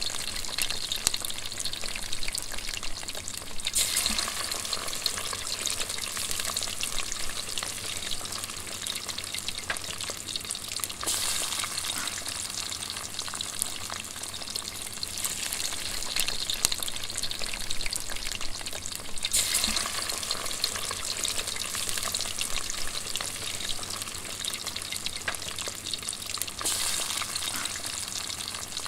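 Bacon frying in a pan: a continuous sizzle of spitting fat with dense fine crackles, swelling and easing every few seconds.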